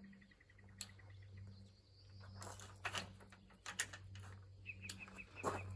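Scattered light metal knocks and clicks as a mower sickle bar is worked by hand into the cutter bar. A small bird chirps in quick high trills near the start and again near the end, over a faint low steady hum.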